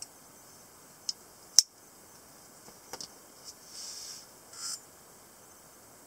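Semiautomatic karambit folding knife being worked by hand: a light click about a second in, then one sharp, loud metallic snap of the blade mechanism, followed by a few smaller clicks and brief handling rustles.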